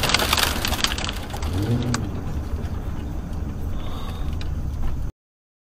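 Car driving on a highway as picked up by a dash cam mic inside the cabin: road noise and a low engine rumble. A louder hiss in the first two seconds settles to a steadier rumble, which cuts off suddenly about five seconds in.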